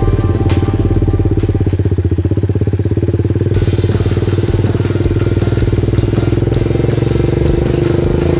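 Engine of an off-road vehicle running steadily while driving across sand, a fast, even stream of engine pulses.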